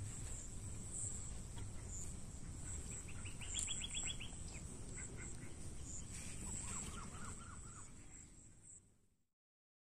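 Pond-side ambience: a steady high insect drone over a low rumble, with bird calls, a quick run of about eight short notes a few seconds in and a lower series of calls about seven seconds in. The sound fades out to silence near the end.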